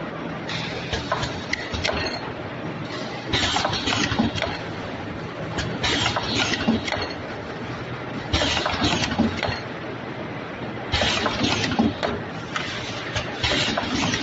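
Egg tart forming machine running: a steady motor hum, with a short, loud clattering burst about every two and a half seconds as the machine goes through its pressing cycle.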